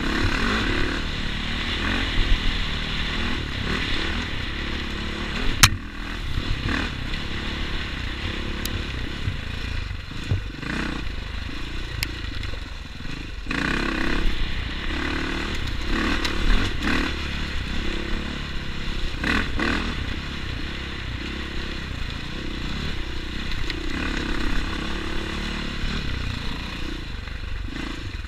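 Dirt bike engine revving up and down over and over as the bike rides a rocky, rooty trail, with clattering and scraping from the bike over rough ground and a few sharp knocks, the loudest about six seconds in.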